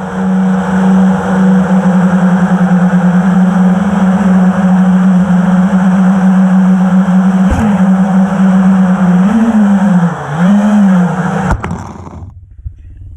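FPV quadcopter's brushless motors and propellers buzzing at a steady pitch. Near the end the pitch dips and rises twice with throttle changes, then the sound cuts off suddenly.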